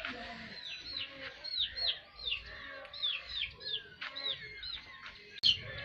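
Birds chirping: a run of short high peeps that rise and fall, two or three a second, with a sharp knock near the end.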